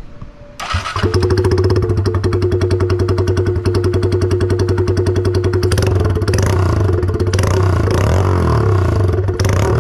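A 2022 Honda Grom's single-cylinder engine starts about half a second in and settles into a loud, rapidly pulsing idle through a worn-out Zoom Brute exhaust, which sounds junky. The pitch rises and falls a few times after about six seconds.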